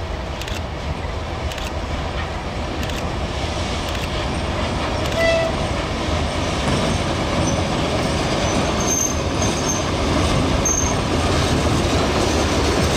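A TEM2U shunting diesel locomotive's six-cylinder diesel engine running as it hauls a train of covered hopper wagons past, growing louder as it approaches, with the wheels rolling on the rails. A brief high tone sounds about five seconds in.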